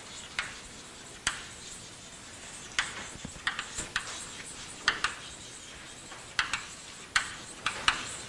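Chalk writing on a blackboard: a dozen or so sharp clicks and taps at irregular intervals, some in quick pairs, as the chalk strikes the board.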